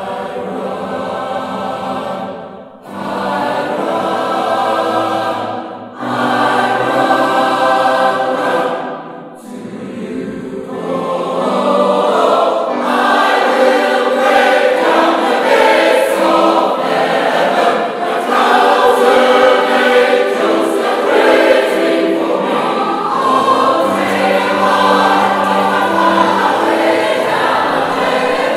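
Combined gospel choirs singing in harmony: held chords in short phrases with brief breaks, then fuller, louder singing from about ten seconds in.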